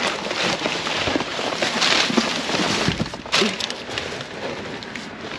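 Crackling and rustling of garbage in a dumpster: plastic bags, cardboard boxes and packaging crunching and shifting as someone climbs and treads through the trash. The sound is a dense run of small cracks and crinkles, loudest around the middle.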